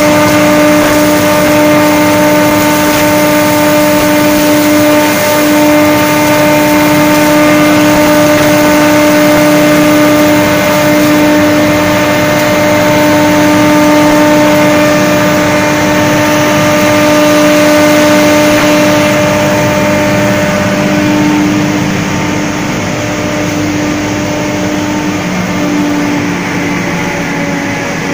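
Straw bale crushing and grinding machine, a rotary tub cutter and hammer mill in one, running while it shreds straw: a loud, steady mechanical whir with a constant hum over a rushing grinding noise. About two-thirds of the way through, the sharper hiss eases and the sound gets somewhat quieter.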